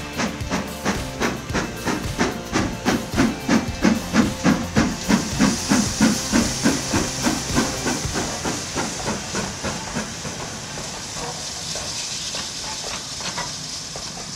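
Steam train headed by GWR King class four-cylinder 4-6-0 No. 6023 King Edward II passing at speed: rapid, even exhaust beats, about four a second, loudest a few seconds in, with steam hiss rising as the engine goes by. The beats then fade into the steady rolling of the coaches.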